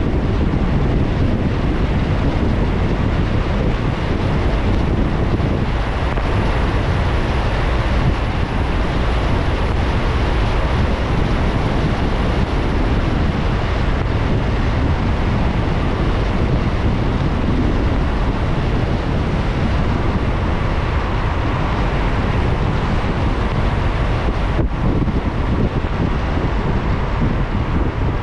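Steady, even rush of a car driving on a wet road in the rain: tyre and road noise with wind, deepest in the low end, with no engine note standing out.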